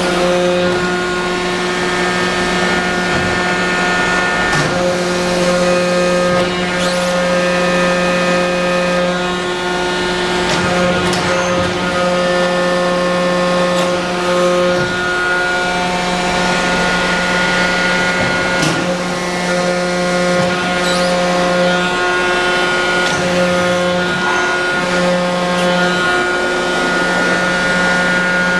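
Lang Tube Tec #100 CNC tube bender running: a steady machine hum whose tones cut in and out as the machine works through its moves, with occasional clicks and clunks.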